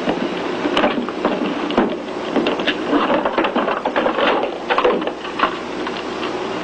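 Irregular clicks and clatter of telephone-repair equipment being handled: a case opened and a telephone handset picked up, over a steady low hum.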